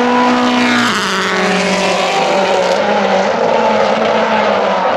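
Rally car engines running hard on a racing circuit. About a second in, the engine note drops in pitch, then holds steady.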